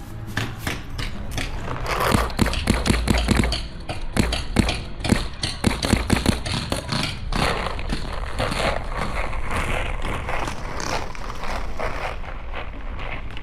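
Wind buffeting the microphone as a steady low rumble, with a string of irregular knocks and taps over it, densest in the first half.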